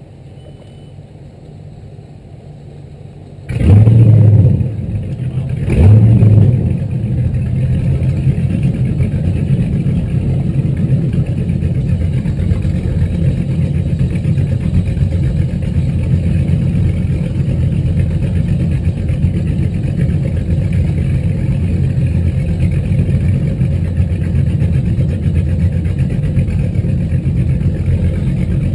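The twin inboard engines of a Sea Ray 330 Sundancer cruiser start one after the other, about two and a half seconds apart, each catching with a loud burst. Both then idle steadily with a low, even running sound.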